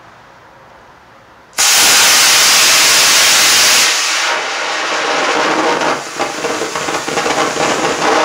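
Estes black-powder model rocket motor static-firing: about a second and a half in it ignites with a sudden loud rushing hiss, strongest for about two seconds, then slightly weaker and wavering as it keeps burning.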